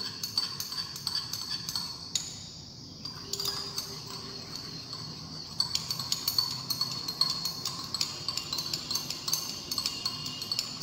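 Glass stirring rod clinking rapidly against the inside of a small glass beaker, in a continuous run of light ticks with a brief lull about two seconds in. The rod is stirring phenol so that it dissolves.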